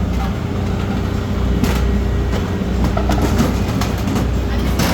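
A steady low mechanical hum from a running machine, with a few sharp clanks.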